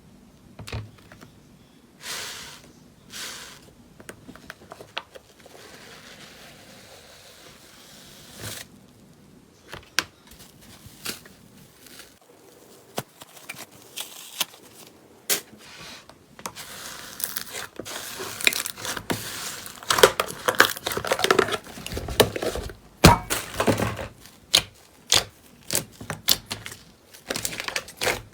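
Slime being pressed and squished by hand, making crackles and sticky pops. They are scattered at first and grow denser and louder about halfway through.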